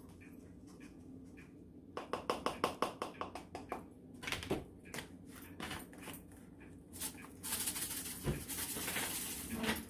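Everything bagel seasoning poured through a small funnel into a glass shaker bottle: a quick run of light taps and seed patter about two seconds in, a few clicks, then a longer rattling hiss of seeds in the shaker near the end.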